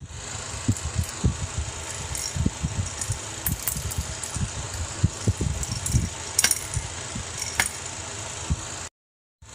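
Small plastic toys handled over a plastic toy bathtub: irregular soft knocks and a few sharp clicks over a steady high hiss, cutting out for about half a second near the end.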